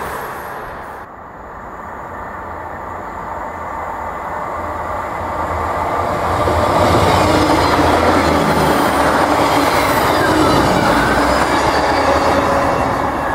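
Short diesel multiple unit passenger train approaching along the main line and passing, its engine and wheels on the rails growing louder from about a second in and staying loud through the pass.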